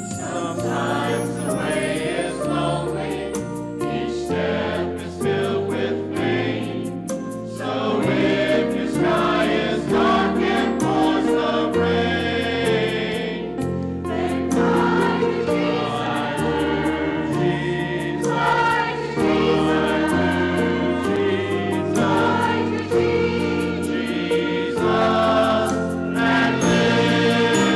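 Church choir of mixed men's and women's voices singing an anthem in parts, growing a little louder about eight seconds in.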